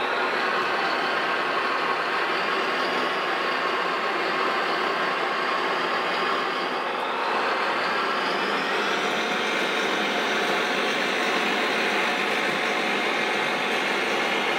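Radio-controlled model Caterpillar D9 bulldozer driving and turning on its tracks, a steady mechanical running noise from its drive that dips briefly and then rises a little in pitch about seven to eight seconds in.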